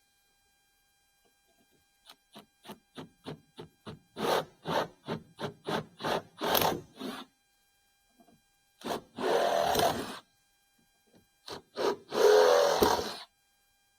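Metal being cut and rasped while undersized screw holes in a sheet-metal cabinet door are enlarged: a quick run of short scraping strokes, about three a second, then two longer rough grinding bursts of about a second each.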